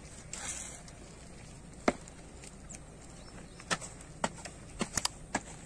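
Footsteps: a few sharp taps of shoes on a concrete road, quiet and irregular, coming closer together in the last two seconds.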